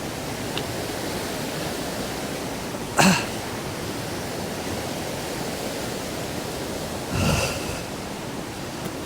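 Waterfall and rapids running full after heavy rain: a steady rushing of water. Two brief, louder sounds break in, about three seconds in and again about seven seconds in.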